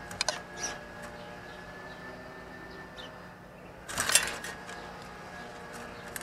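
Gray squirrel feeding on a plastic feeder tray of corn and seed: a few sharp clicks near the start, then a louder scrabbling rustle about four seconds in as it shifts its feet on the tray and kernels rattle.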